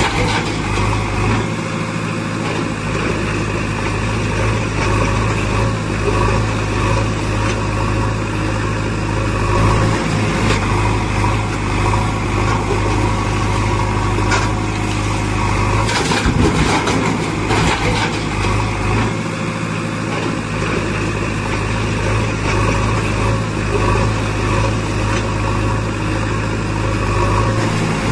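Heavy vehicle engine running steadily at idle, a low even drone, with a few brief knocks near the middle.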